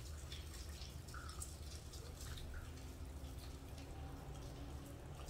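Soft wet chewing and small mouth clicks of someone eating rice and bamboo shoots by hand, over a steady low hum.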